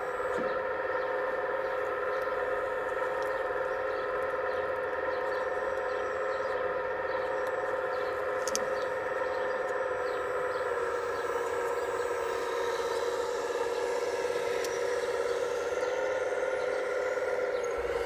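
Hydraulic pump of an RC model Case CX85RR rail-road excavator running with a steady high whine that drifts slightly in pitch around the middle and cuts off at the very end.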